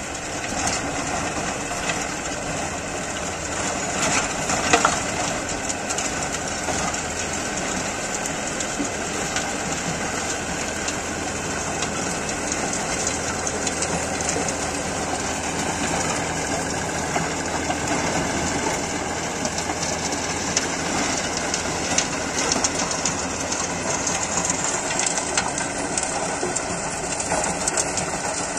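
Force Sanman 6000 tractor's diesel engine running steadily under load, driving a Sonalika rotavator that is tilling dry soil.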